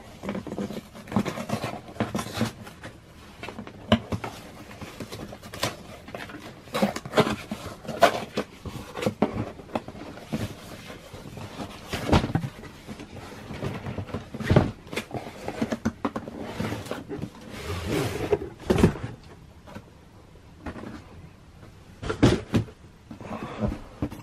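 A cardboard shipping box being opened and handled: scraping, rustling and knocks of the cardboard, with a few louder thumps as the box is tipped and the shoebox inside is slid out.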